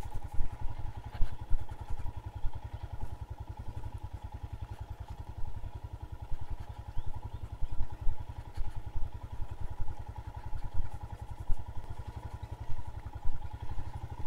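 Royal Enfield Himalayan's single-cylinder engine running at low speed while the bike is ridden over a rough, rocky dirt track. Irregular knocks and clatter come from the bike jolting over the rocks.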